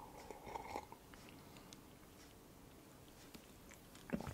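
Faint sip of hot chocolate from a glass: a short slurping hiss in the first second, then quiet swallowing and soft mouth clicks, with a couple of small clicks near the end.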